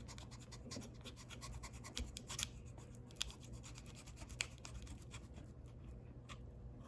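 A dull knife scraping and sawing at the plastic of a blister pack: a dense run of small scratchy clicks, with a few louder ticks in the middle.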